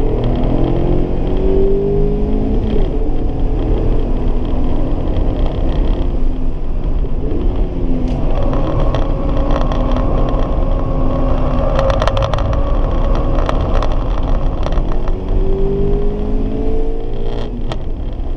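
Mazda Roadster ND's 1.5-litre four-cylinder engine driven hard on track, heard inside the cabin over road and wind noise. Its note rises in pitch through the revs near the start and again near the end, and holds steadier in between through a corner.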